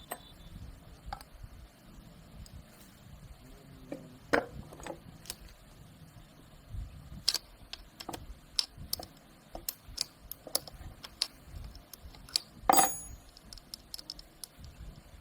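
Irregular light metallic clicks and clinks of tools and small metal parts being handled, with a louder clank about four seconds in and the loudest clank, ringing briefly, near the end.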